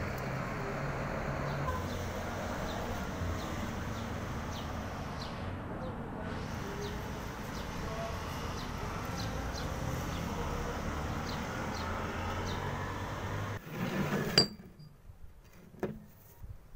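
Steady background noise with a low hum and faint ticks. Near the end it drops away, and there is a sharp knock, then a few light metallic clinks as steel discs are handled on a wooden table.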